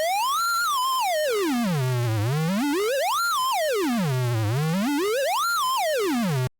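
Synthesized data-sonification tone, a country's border outline mapped to pitch: one buzzy tone with overtones sweeping smoothly up and down three times, with small wobbles where the border turns, and cutting off abruptly near the end.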